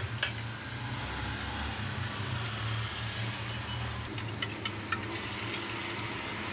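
A steady hiss with a low hum from the stove under a hot nonstick frying pan. About four seconds in, butter begins to sizzle and crackle in the pan, and beaten egg is poured in near the end.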